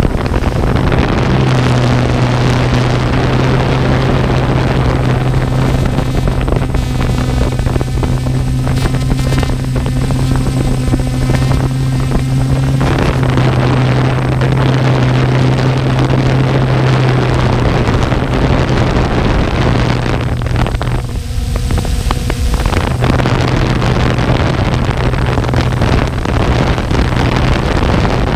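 DJI F550 hexacopter's motors and propellers running with a steady hum, with wind noise on the onboard camera's microphone. The low hum drops out for about two seconds roughly three-quarters of the way through.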